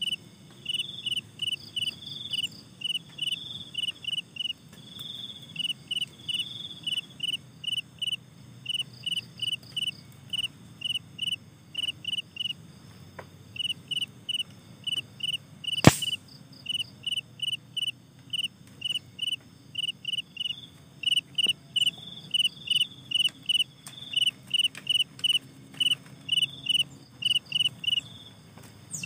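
Crickets chirping in steady runs of short, high chirps, about three to four a second, with brief pauses. About halfway through comes a single sharp snap, louder than the chirping.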